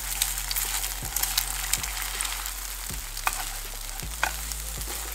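Eggs sizzling in hot oil in a nonstick frying pan while they are scrambled with a spatula, the sizzle a steady hiss, with a scrape or tap of the spatula against the pan about once a second.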